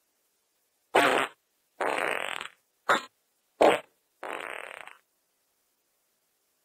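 Five fart sounds in quick succession, each separated by dead silence. The first and fourth are short, sharp blasts and the loudest. The second and fifth are longer and rougher, and the third is a quick pop.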